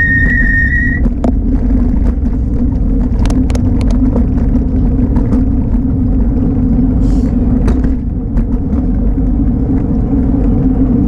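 Steady wind and road rumble on a bicycle-mounted camera while riding along a city street. A high steady squeal cuts off about a second in, and small clicks and rattles come and go.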